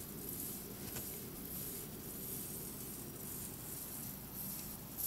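Quiet, steady background noise: a low rumble with a faint hiss and no distinct event standing out.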